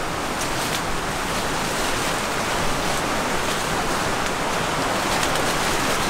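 Steady rushing of flowing water, an even hiss with no rhythm or breaks.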